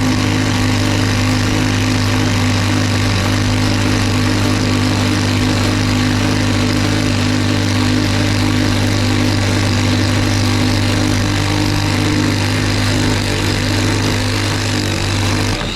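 Power drill running steadily under load, cutting a hole through a boat deck, and stopping near the end as it breaks through.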